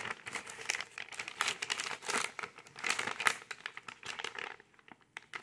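Crinkling and rustling of the plastic MRE flameless ration heater bag and the food pouch inside it as they are handled. It is a run of quick rustles that dies down near the end.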